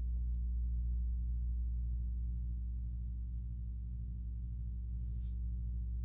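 Steady low electric hum from a portable induction cooktop heating a pan, made of several unchanging low tones.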